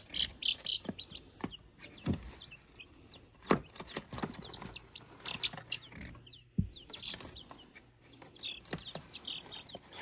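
Young chickens in a brooder peeping, many short high cheeps close together, with a few knocks and thumps as they are handled and set down; the loudest thump comes about three and a half seconds in.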